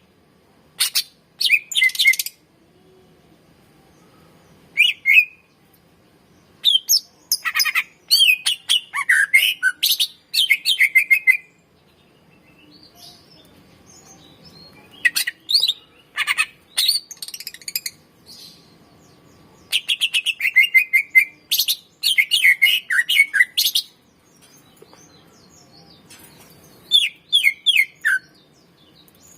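Cucak ijo (green leafbird) singing: about six bouts of rapid, high, sliding whistled and chattering notes, with short pauses between them.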